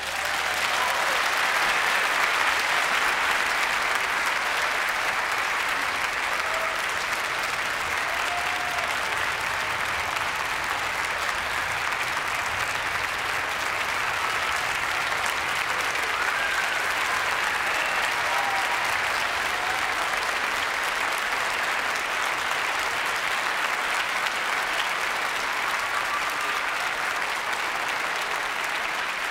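Concert audience and orchestra players applauding, a steady, even clapping that breaks out suddenly at the start and holds at a constant level.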